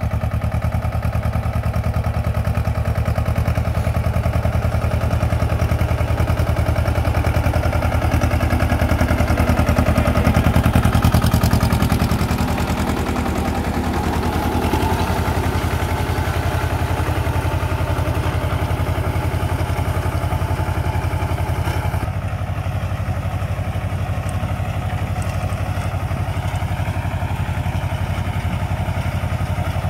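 Tractor engine running steadily, rising a little about a third of the way in and then easing back.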